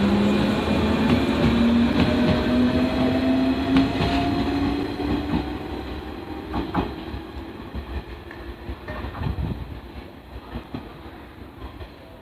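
Electric train running past, its motor whine rising steadily in pitch as it accelerates, with a few wheel clicks over rail joints. It fades away gradually from about halfway through as the train moves off.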